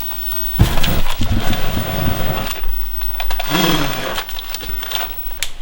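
Homemade flamethrower built on a Nerf X-Shot blaster firing a burst of flame: a sudden whoosh about half a second in that lasts about two seconds.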